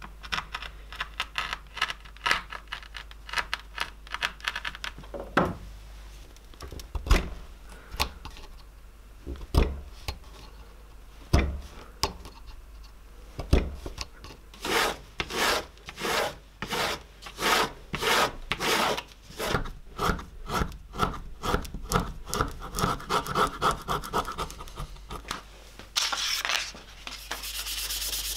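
Hand leatherworking on a knife sheath: first a fast run of light ticks as a spiked marking wheel rolls over the leather, then a few scattered knocks. Next comes a long series of rhythmic rasping strokes as an awl is worked through the leather against a wooden block. Near the end a steady hiss sets in as a curly birch knife handle is sanded by hand.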